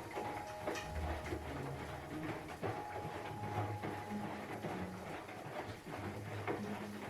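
Washing machine running, its turning drum giving an uneven clatter of small clicks and knocks.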